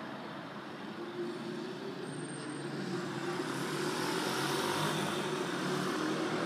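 Steady vehicle noise, growing slowly louder, with a faint low hum running through it.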